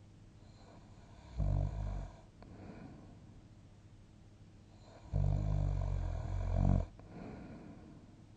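A person asleep, snoring. There is a short snore about a second and a half in and a longer one about five seconds in, each followed by a quieter out-breath.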